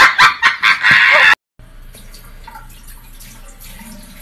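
Loud bursts of laughter that cut off abruptly about a second and a half in. After a short gap, faint water runs from a bathroom sink tap.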